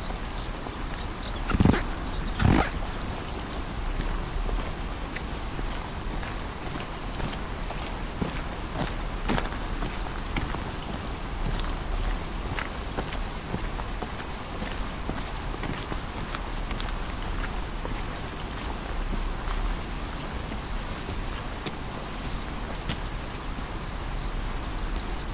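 Heavy rain with a steady hiss and scattered drop ticks. Two short thumps stand out about two seconds in.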